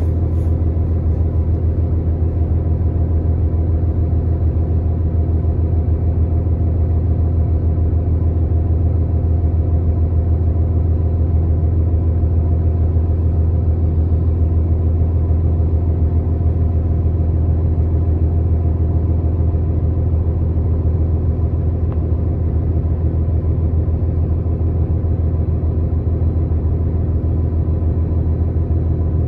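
Steady low hum of a New Flyer XDE60 diesel-electric hybrid articulated bus, heard from inside the passenger cabin, even and unchanging in pitch and loudness.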